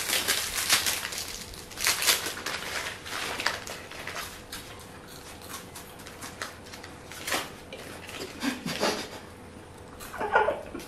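Chocolate-bar wrappers with foil linings being torn open and crinkled, a dense crackle for the first few seconds that thins out as they start eating. A short hum or laugh from one of them comes near the end.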